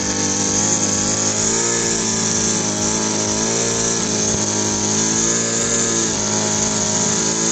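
Gladiador Pro two-stroke brush cutter running steadily at high speed, its nylon line head spinning in grass; the engine note wavers slightly as it works.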